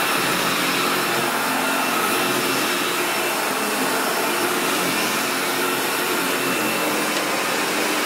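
Sebo BS36 commercial upright vacuum cleaner running steadily, its motor and spinning brush roll making a constant drone.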